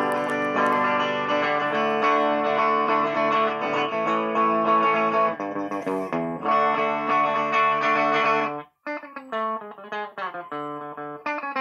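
Electric guitar, a Gibson ES-137 with TV Jones pickups, played back from a loop pedal: ringing chords that cut off suddenly about three quarters of the way through, after which separate picked notes with short gaps between them start up.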